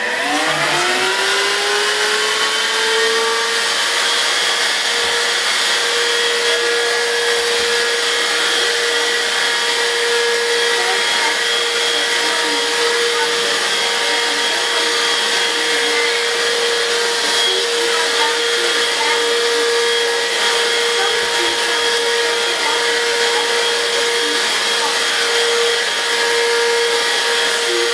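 Dibea F6 cordless stick vacuum switched on, its motor spinning up in a rising whine over the first two or three seconds, then running steadily with a high whine as the floor head picks up fine powder from a hard floor.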